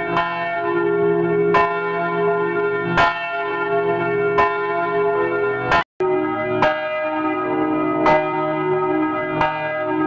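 A single swinging church bell tolling, its clapper striking about every one and a half seconds, each stroke ringing on under the next. About six seconds in, the sound drops out for a split second, and the strokes then resume at the same pace with a slightly different ring.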